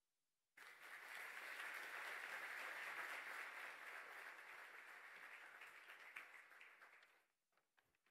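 Audience applauding, starting suddenly about half a second in and dying away near the end, followed by a few faint clicks.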